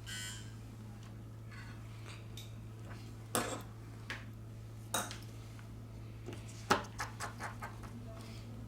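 Small metal tools and phone parts clicking and tapping during smartphone reassembly: a few separate sharp taps, then a quick run of small ticks about two-thirds of the way through, over a steady low hum.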